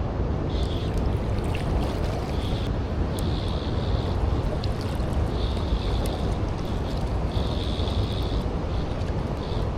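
Rushing river water with wind buffeting the microphone, a steady low rumble throughout.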